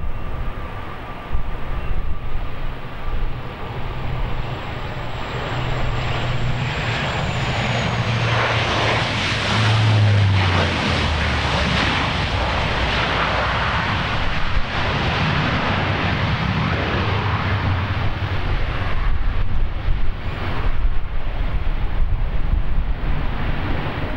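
Bombardier DHC-8-Q400 turboprop passing on its landing: its propeller drone drops in pitch about ten seconds in as it goes by, and the engine noise swells and then fades near the end.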